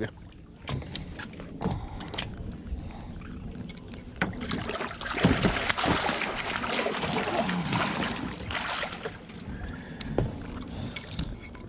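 A large blue catfish, about 14 pounds, thrashing and splashing at the water's surface beside the boat as it is landed. A few knocks come first, then heavy splashing from about five seconds in that eases off near the end.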